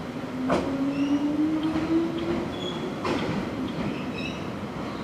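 Hankyu 3000-series electric train pulling away around a curve: its motor whine rises slowly in pitch as it accelerates. A sharp clack of the wheels comes about half a second in and another at three seconds, with short high squeals from the wheels on the curve in between.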